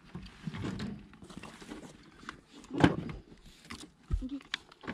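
Unhooking a golden dorado on an aluminium boat deck: pliers clicking on the lure's hooks and scattered knocks on the diamond-plate floor, with one louder thump about three seconds in.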